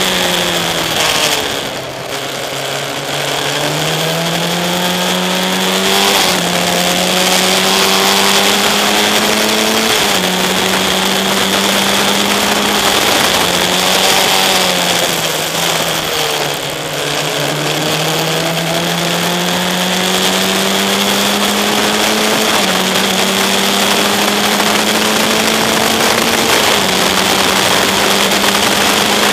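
Single-seater race car's engine at full racing speed, heard onboard: it climbs in pitch through the gears, dropping sharply at each upshift, and falls away twice as the car slows, near the start and again about halfway through.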